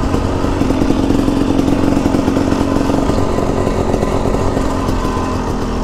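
KTM 300 two-stroke dirt bike engine running steadily, with no change in throttle.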